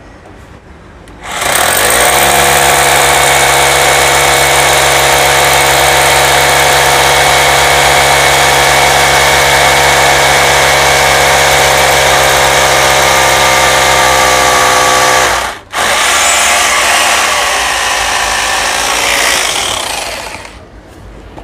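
SDS rotary hammer drill in combined drill-and-hammer mode boring a 10 mm hole into a chunk of concrete. It starts about a second in and runs steadily for about fourteen seconds, stops for a moment, then runs for another five seconds before stopping near the end.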